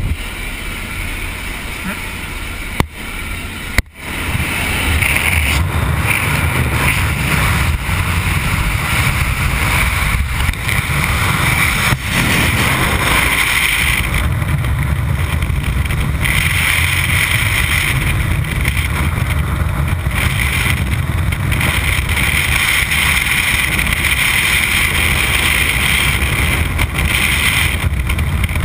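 Aircraft engine and wind noise at the open door for the first few seconds, with a few knocks, then a steady, louder rush of freefall wind over the jumper's camera microphone.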